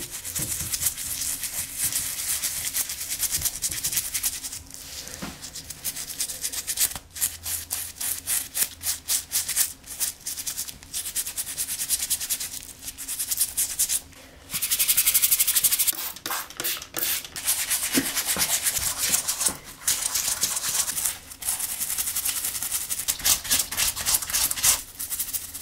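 A toothbrush scrubbing a damp mesh baseball cap in quick back-and-forth strokes, a scratchy rubbing sound with a few short pauses, as stain remover is worked out of the fabric.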